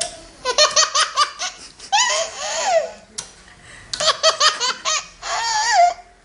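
Baby laughing in about four high-pitched fits, each a quick run of staccato chuckles and squeals, with short pauses between them.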